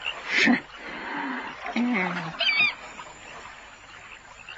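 Short honking calls of waterfowl, with a brief warbling high chirp about halfway through. A short rushing burst comes near the start.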